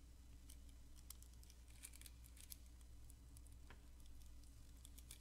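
Near silence over a steady low hum, with faint scattered clicks and crinkles of a sheet of paper being handled.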